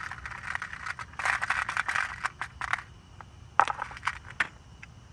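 Close rattling and scraping with many scattered clicks, the noise of something being handled; a sharp click about three and a half seconds in is the loudest.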